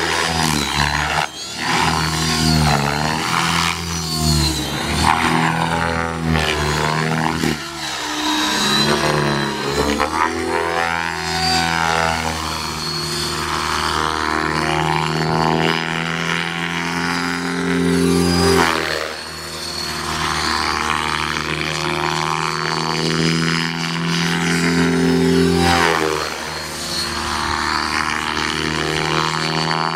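Align T-REX 600E electric RC helicopter flying aerobatics, its rotor blades and motor giving a steady whirring hum. The pitch shifts a few times and the sound sweeps and wavers as the helicopter moves about the sky.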